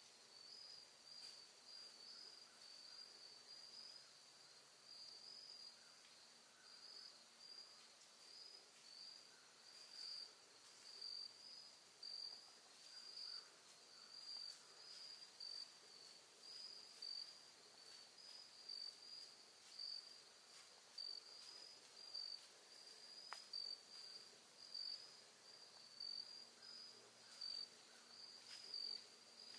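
Faint insect chirping in the woods: a steady high-pitched trill that pulses about once a second, over near-silent background.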